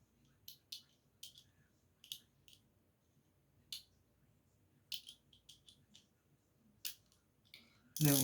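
Irregular sharp clicks and clinks of small tools, such as sockets, being handled and taken out of a tool set case.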